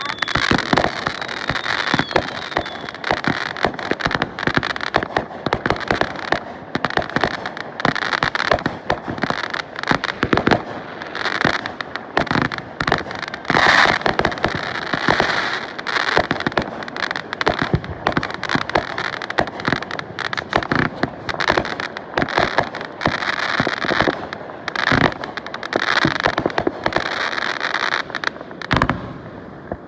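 Fireworks going off in a dense, continuous barrage of bangs and rapid cracks, easing briefly just before the end.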